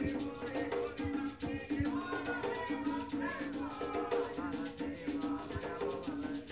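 Umbanda ritual music: an atabaque hand drum beating a steady rhythm, a rattle shaking, and voices singing a chant together.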